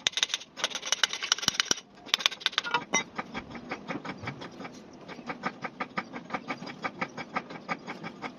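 Rapid, even metallic clicking, about six clicks a second, with short breaks about half a second and two seconds in.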